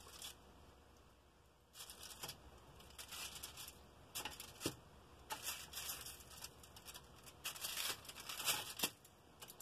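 Raw chicken drumsticks being picked up and turned over on an aluminium-foil-lined tray: faint, irregular crinkling of the foil with soft handling sounds, starting about two seconds in.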